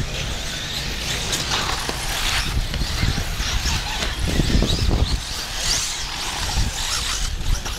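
Electric 1/8-scale off-road RC buggies running on a dirt track, a light hiss and whir that comes and goes as they pass, over an uneven wind rumble on the microphone.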